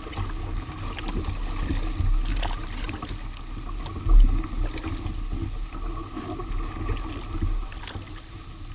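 Kayak paddle strokes through water thick with lily pads: splashing, dripping and the blade dragging through the leaves, with water moving against the hull. There are low knocks throughout and one heavier thump about four seconds in.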